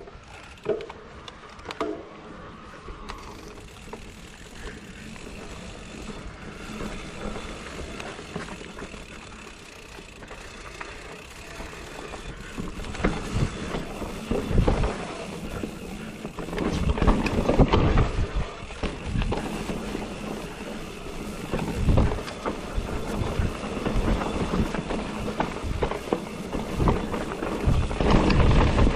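Electric mountain bike riding noise: wind on the microphone and the bike rattling, getting louder about halfway through with irregular heavy knocks and buffets.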